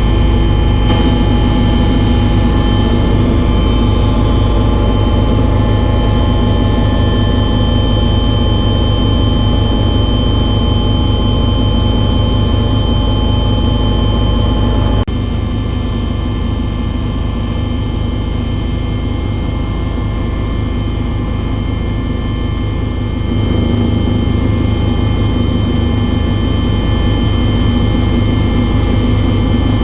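Loud, steady engine drone with a deep rumble and several steady whining tones. The sound shifts abruptly twice, about fifteen seconds in and again near twenty-three seconds.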